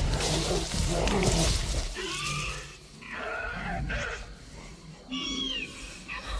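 Velociraptor creature sound effects: a loud rasping growl for about two seconds, then a string of short shrieking calls that bend up and down in pitch.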